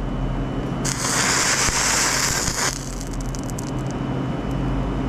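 Concrete floor under the beam of a 2,000-watt laser, burning through. A loud hiss comes for about two seconds, then scattered crackles and pops. A steady low hum runs beneath.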